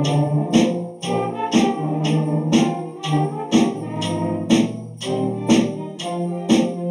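School concert band playing a rock-style Christmas arrangement: flutes, saxophones and brass holding chords over a steady percussion beat, with strong accents about once a second.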